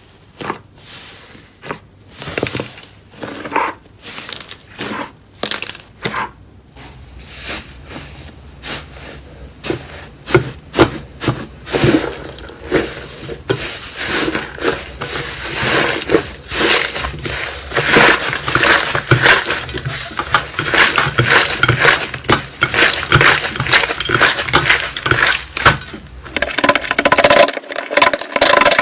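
Slime being squeezed and pressed, giving a string of crackling clicks that are sparse at first and grow into a dense, continuous crackle about twelve seconds in.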